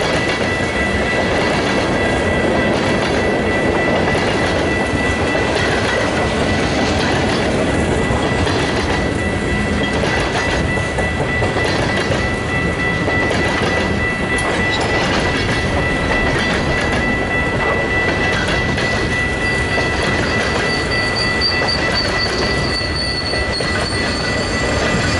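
Freight cars (tank cars, then covered hoppers and boxcars) rolling past at speed, wheels clicking over rail joints, with a steady high wheel squeal and a second, higher squeal starting near the end.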